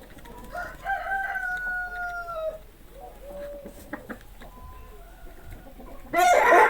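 Domestic chickens calling. One long drawn-out call falls slightly in pitch over about two seconds, a short call follows, and a loud harsh squawk comes near the end.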